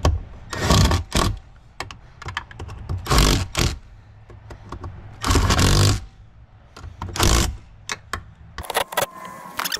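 Cordless drill turning a socket on an extension in several short bursts, each under a second, with clicks and rattles between: tightening the nuts that hold a new tow mirror to a truck door.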